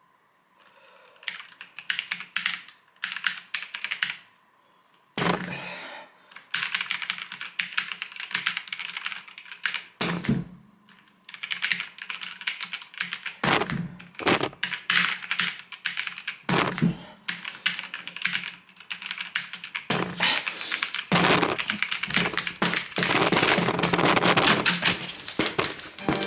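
Computer keyboard being typed on in bursts of rapid keystrokes, with a few heavier key strikes between bursts. The typing gets faster and almost continuous in the last several seconds.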